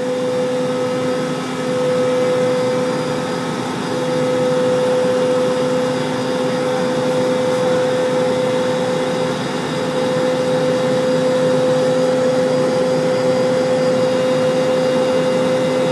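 Steady cabin drone of a T-1 Jayhawk's twin turbofan engines in the climb after takeoff, a loud rush with a steady mid-pitched whine over it.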